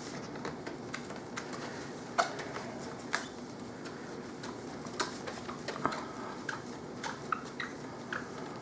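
Paper towel wiping and rubbing over a laptop's surface with glass cleaner, giving scattered light taps and short squeaks.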